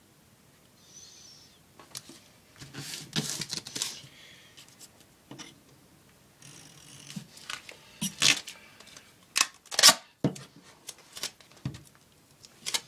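Duct tape being pulled off the roll and cut with scissors: several short rasping bursts and sharp snips at uneven intervals, the loudest about ten seconds in.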